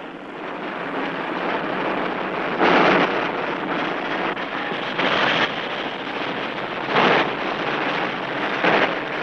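Noisy rumble of a column of military vehicles driving past, swelling in four louder surges about two seconds apart.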